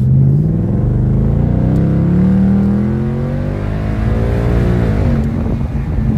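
The 2022 Ford Mustang GT's 5.0-litre V8 accelerating hard, its pitch climbing steadily for about five seconds. Near the end the pitch drops and levels off as the ten-speed automatic shifts up.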